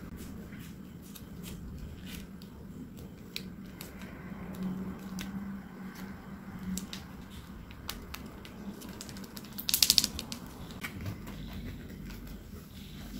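Light crinkling and ticking of a plastic sauce sachet and a paper burger box being handled while chili sauce is squeezed onto a burger. A brief, louder crinkling rustle comes a little before ten seconds in.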